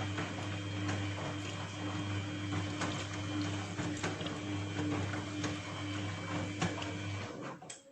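Samsung WF1600WCV front-loading washing machine running with a steady low hum and scattered clicks and knocks. It cuts off sharply near the end.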